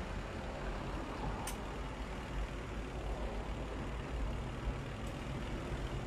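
Steady low background rumble, with one short click about a second and a half in.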